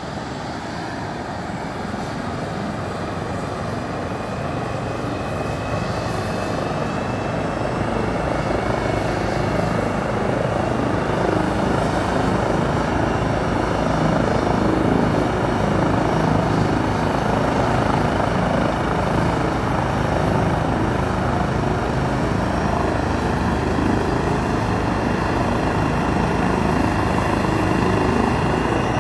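ADAC air-rescue helicopter running up on the ground before lift-off: a steady rotor beat under a high turbine whine that slowly rises in pitch, the whole sound growing gradually louder.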